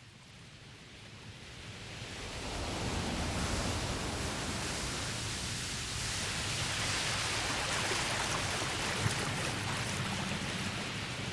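Ocean surf: a steady wash of waves and moving water, fading up from faint over the first two or three seconds and then holding level.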